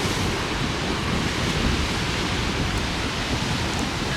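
Wind buffeting the microphone over the wash of ocean surf, a steady rushing noise with a low rumble.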